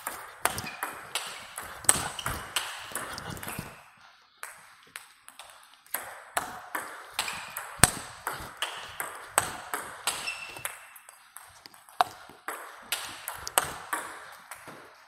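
Table tennis rally, topspin against topspin: the ball is struck by rubber-faced bats, one of them fitted with the Chinese Young Shine Blue rubber, and bounces on the table in a quick run of alternating clicks. Play breaks off briefly about four seconds in, then resumes.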